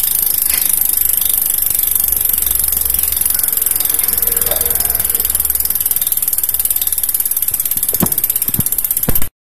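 Bicycle rear freehub buzzing loudly as the wheel spins freely, its pawls clicking in a fast, even stream that grows slightly more distinct in the last few seconds. A few sharper knocks come near the end before the sound cuts off suddenly.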